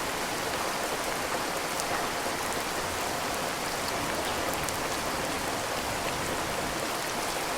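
Steady rain falling, with a few separate drops ticking through the even hiss.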